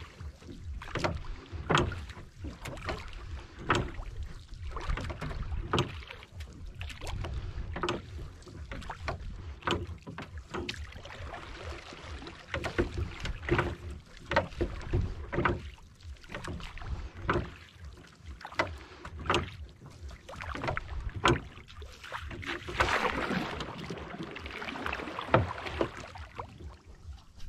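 Wooden boat being paddled, with a knock at each stroke about every two seconds and water washing along the hull. A low rumble of wind on the microphone runs underneath.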